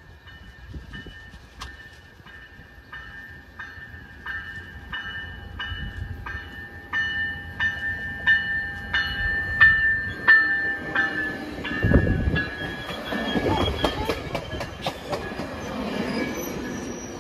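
A bell ringing rapidly, about two strokes a second, stopping about ten seconds in. Then a passenger train comes in, its rumble and wheel noise rising and staying loud.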